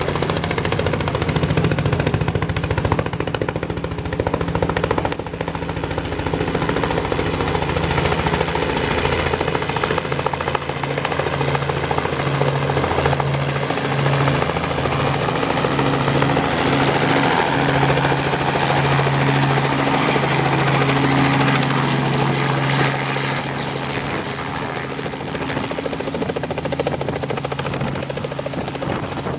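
Robinson R44 helicopter coming in to land, its rotor beating and piston engine running steadily as it descends from over the trees into a low hover above the landing pad. The sound eases slightly in the last few seconds.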